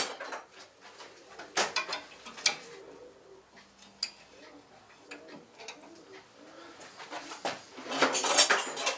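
Rummaging through metal tools and objects on a workbench: scattered clinks and knocks, then a longer stretch of clattering and rattling near the end.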